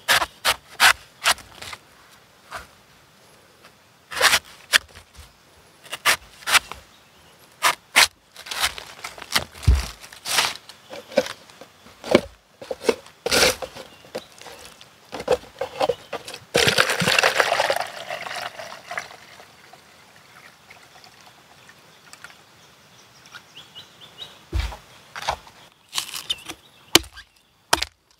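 A cleaver chopping and shaving the husk of a young coconut: sharp cuts in clusters. For a few seconds past the middle, coconut water pours from the opened coconut into a plastic cup, and a few more chops come near the end.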